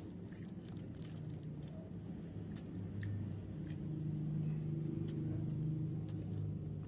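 Faint eating sounds, scattered small clicks of chewing and handling food, over a low steady hum that grows louder about three seconds in.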